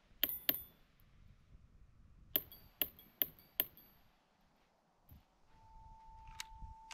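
Glock 44 .22LR pistol firing six shots: two quick ones at the start, then four about half a second apart, some followed by a short metallic ping from the steel targets. A faint steady tone comes in near the end.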